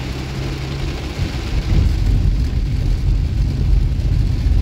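Heavy rain beating on a moving car's windshield and body, heard from inside the cabin over the running car. About a second in, a low rumble swells and stays louder.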